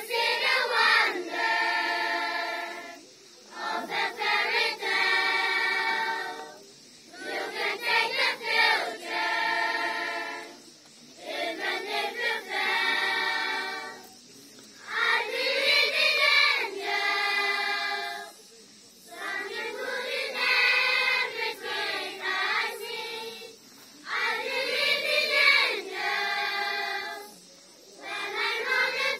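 A children's choir singing unaccompanied, in phrases of two to three seconds with short breaks between them.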